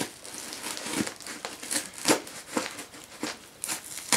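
Scissors slicing through the packing tape along a cardboard box's seam: a string of short, irregular crinkling rips of tape and cardboard, about one every half second.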